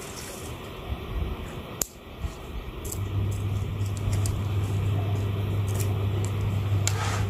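A single sharp snip-like click just before two seconds in. From about three seconds in, a steady low engine-like rumble sets in and holds level.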